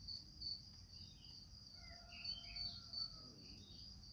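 Faint, steady high-pitched insect trilling, typical of crickets, with scattered short bird chirps over it.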